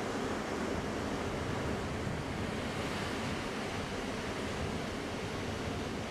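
Pacific Ocean surf washing onto the beach: a steady, continuous rush of waves.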